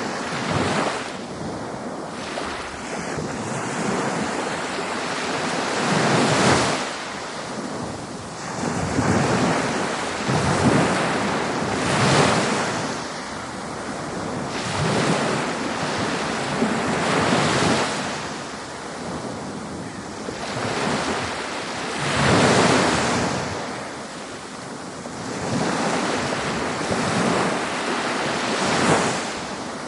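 Ocean waves breaking on a beach, a steady wash of surf that swells and falls back every few seconds as each wave comes in.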